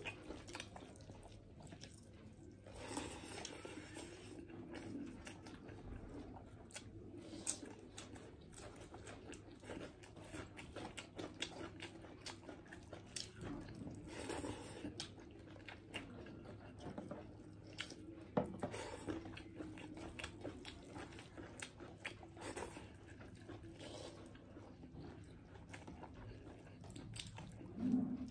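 Close-up eating sounds: chewing and mouth clicks from rice and mutton curry eaten by hand. There are many short, soft clicks and a few slightly louder stretches of chewing.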